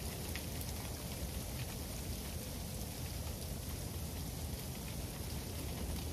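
Freezing rain falling steadily: an even hiss with many small ticks of drops striking hard surfaces.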